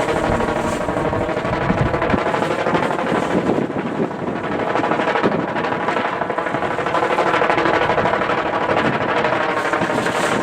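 A kite humming in strong wind: a steady buzzing drone with a noisy rush of wind underneath, swelling and easing slightly.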